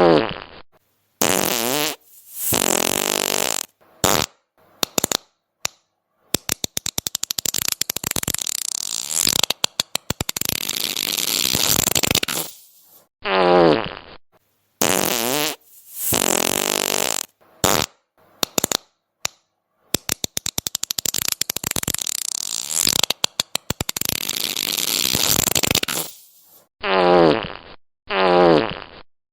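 A string of fart sound effects, one after another with short gaps. Some are drawn out with a wavering, bending pitch, others are rapid sputtering runs of pops. The sequence seems to repeat about halfway through.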